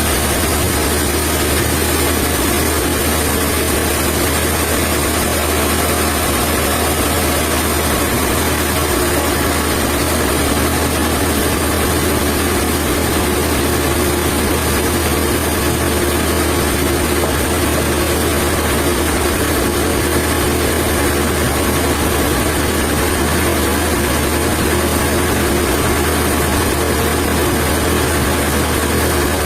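Sawmill machinery running steadily: a constant low hum under an even hiss, with no change in pitch or load.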